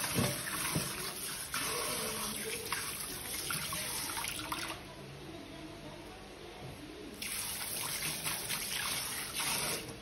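Water running from a tap into a sink with some splashing. It stops a little before halfway and starts again about two and a half seconds later, stopping just before the end.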